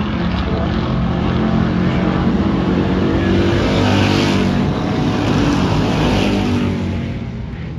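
A pack of dirt-track stock cars racing past on the oval, several engines running together. The sound swells to a peak about four seconds in as the field goes by, then fades near the end.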